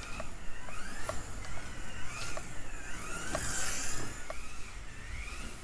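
Kyosho Mini-Z RWD's small electric motor and gears whining as the 1/27-scale car laps a track. The pitch rises and falls over and over as it speeds up and slows through the corners, with occasional light clicks.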